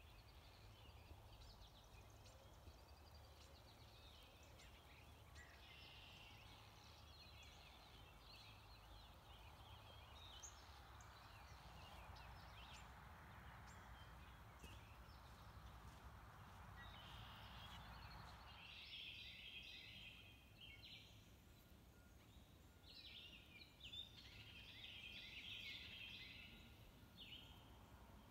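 Faint dawn chorus of several songbirds calling and singing, including an American goldfinch's "potato chip" flight call. A soft rushing noise swells in the middle and stops abruptly about two-thirds of the way through.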